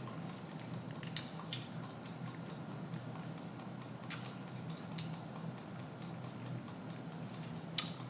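Faint eating sounds: a few soft clicks and mouth smacks as someone chews, over a steady low hum.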